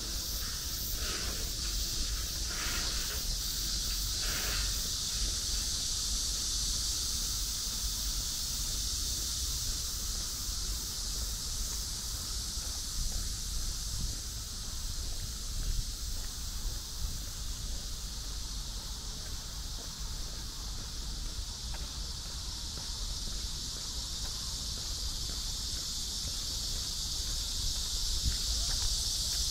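A steady, high-pitched chorus of insects that grows louder in the second half, over a low rumble of wind on the microphone.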